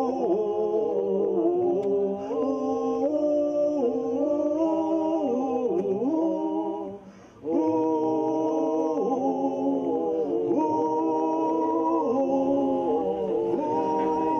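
A group of voices singing a cappella in harmony, holding long notes that change every second or two, with a brief pause about seven seconds in.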